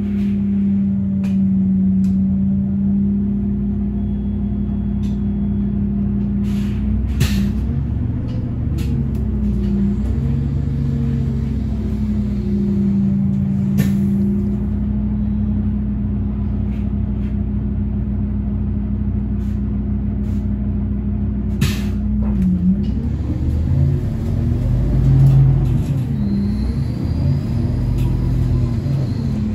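Inside an Iveco Urbanway 18 Mild Hybrid articulated bus: the engine runs steadily with a low hum and rumble, with a few sharp clicks and knocks. In the last several seconds the engine note rises and falls as the bus sets off.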